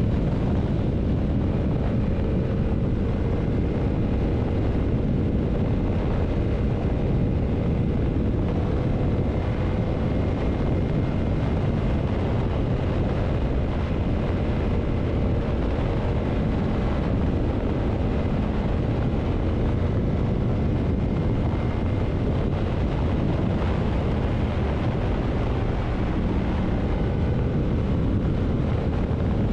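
Yamaha MT-07's parallel-twin engine running at a steady cruise, mixed with wind rushing over the camera microphone. The engine note stays nearly even, with no gear changes or revving.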